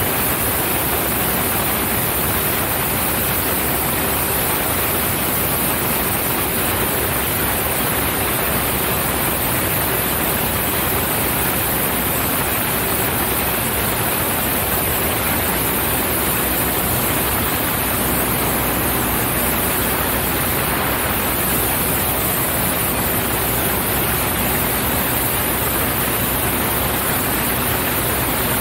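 Cessna 172 light airplane in flight: a steady, unchanging rush of wind and engine noise.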